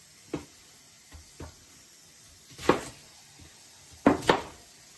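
Kitchen clatter: a handful of sharp knocks of dishes or utensils on a countertop. The loudest comes a little after halfway, followed by a quick double knock near the end.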